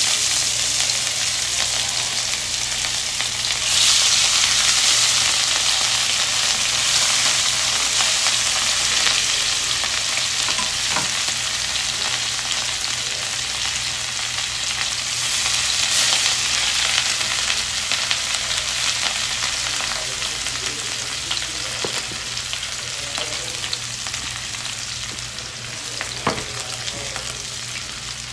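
Masala-coated rohu fish pieces sizzling in hot oil in a frying pan. The sizzle jumps louder about four seconds in, then slowly eases off as the fish fries, with a few small pops.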